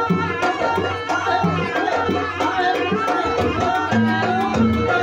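Live Javanese jaranan gamelan music. Kendang hand drums keep a brisk rhythm under a wavering melody line, and deep gong tones come in about three seconds in and then pulse on the beat.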